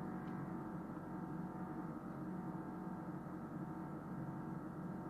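Steady background hum made of several held tones, with no other sound events: room tone.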